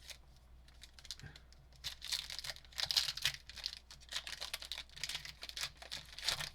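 Crinkling and tearing of a trading-card pack's wrapper as it is opened, in irregular crackly bursts from about two seconds in.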